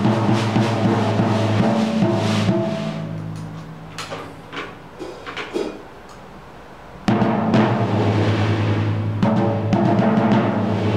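PDP drum kit being played, with the drums ringing in low sustained tones under dense hits. The playing thins to a few scattered hits in the middle, then comes back in full and loud about seven seconds in.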